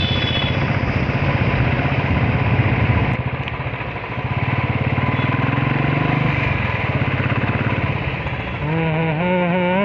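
Royal Enfield 350's single-cylinder engine running under way, with a steady firing beat; the throttle eases off about three seconds in and then picks up again.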